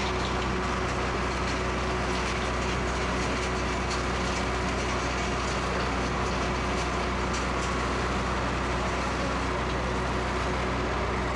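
Heavy machinery running steadily: a tracked excavator's diesel engine and a placer-gold wash plant. Irregular rattling of gravel and rock runs over the drone as the excavator bucket dumps pay gravel into the plant's hopper.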